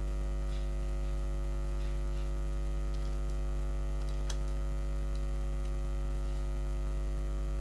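Steady electrical mains hum in the recording, a low buzz with a ladder of even overtones that does not change, with a faint click about four seconds in.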